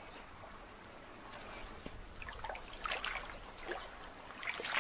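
River water splashing and sloshing in irregular bursts, starting about halfway through and getting louder toward the end.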